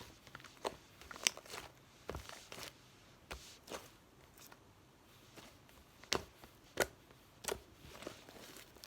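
Homemade slime being squeezed and stretched by hand, giving irregular sticky clicks and small pops, about seven of them.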